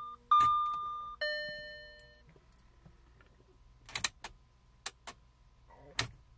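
2009 Audi A4 instrument-cluster warning chimes as the ignition comes on. A single chime tone sounds about a third of a second in, then a lower, fuller gong-like chime follows a second later, each fading over about a second. From about four seconds in come a few sharp clicks from the key fob being pressed in its dashboard slot.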